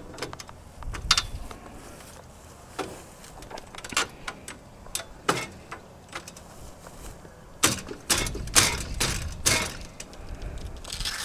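Knocks and clicks of a paramotor's quick-takedown cage tube sections being worked and seated together by hand. They come singly at first, then as a quicker run of louder knocks about two-thirds of the way in.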